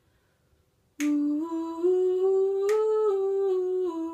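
A woman sings a slow legato 'ooh' scale, stepping up note by note and back down, each note held over a slow metronome clicking about every 1.7 seconds. It is a run slowed right down so every note is heard on its own, practised to build vocal coordination.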